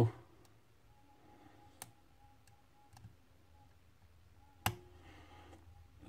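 Metal hook pick working the pins of a pin-tumbler lock cylinder under a tension wrench: a couple of faint clicks, then one sharp click near the end, which the picker counts as pin 3.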